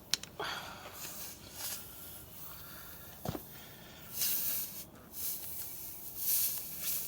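Air hissing in spurts from a punctured tyre as a reaming tool is twisted in the hole, with a few sharp clicks from the tool.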